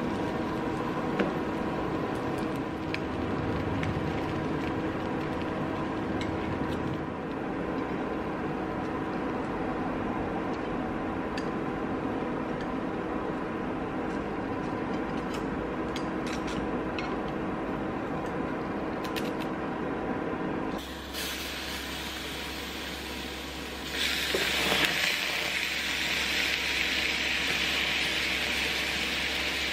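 A steady mechanical hum with faint frying of egg-soaked bread in the pan. Near the end, baked beans sizzle loudly in the hot pan.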